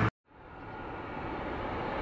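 A Gulfstream G200 business jet's engines running as it taxis, heard as a steady rushing hum that fades in and grows slowly louder. The intro music cuts off at the very start, followed by a moment of silence.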